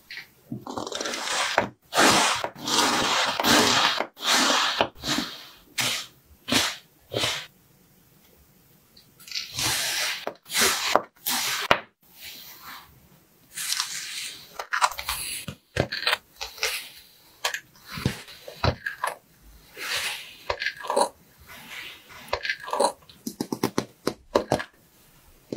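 Kitchen knife slicing through kinetic sand, a series of gritty, crunchy cuts. Several long drawn strokes in the first five seconds and again about ten seconds in, then many short, quick slices.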